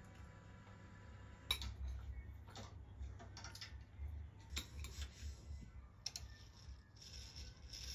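Several light, irregular clinks of cutlery against a ceramic plate while eating, over a faint low hum.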